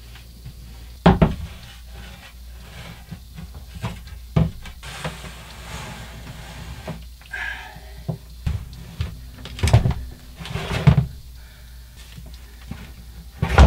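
Heavy Chevy Volt battery module slid over a plywood board and shoved into its compartment: scattered knocks and thumps with stretches of scraping in between.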